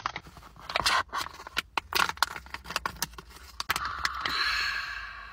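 Plastic snack packet crinkling and crackling in short bursts as it is handled and torn open. For the last second and a half a steady, drawn-out high-pitched vocal sound holds.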